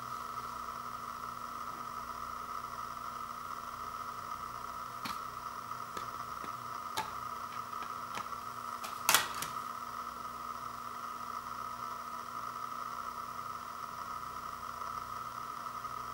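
Light plastic clicks as a Maxell CD-R is worked off the centre hub of a slim jewel case, with one much louder snap about nine seconds in as the disc pops free, over a steady hiss.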